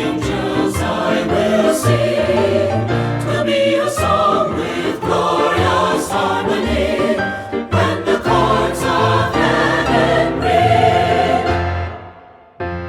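Choir singing with instrumental accompaniment in a worship song, fading out near the end.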